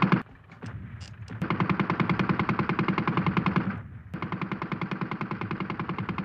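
Machine gun firing rapidly in long sustained bursts: a lull just after the start, a burst of about two and a half seconds, a brief break, then firing again to the end.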